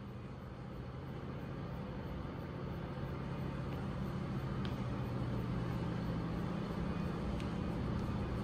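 Steady low hum of showroom room tone, two unchanging low tones under a faint even hiss, growing slightly louder as it goes, with a couple of faint ticks.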